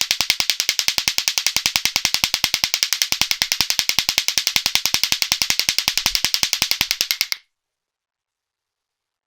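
Lato-lato clackers, two balls on a string, knocking together in a fast, even rhythm of about eight clacks a second. The clacking stops suddenly after about seven seconds.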